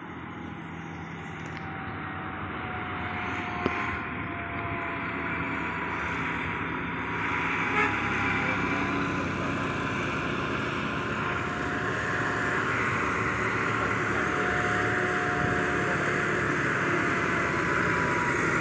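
Heavy diesel goods truck's engine running under load, growing steadily louder as it approaches, with a faint wavering whine over the low drone. Two brief knocks are heard, about 4 and 8 seconds in.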